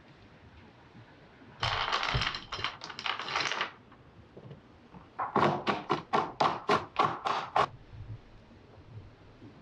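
Roasted peanuts poured out and clattering onto a wooden cutting board. Then a knife chops them on the board with about a dozen quick knocks, roughly five a second.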